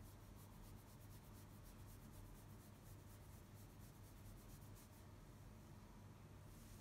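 Near silence: room tone with a steady low hum, and faint, rapid scratchy ticks through the first five seconds or so.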